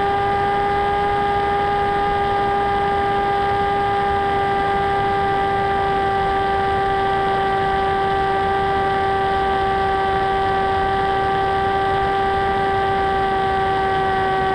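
Sweepwings Juggernaut FPV wing's brushless motor and propeller running at a constant throttle: a steady whine holding one pitch, over a continuous rush of airflow noise.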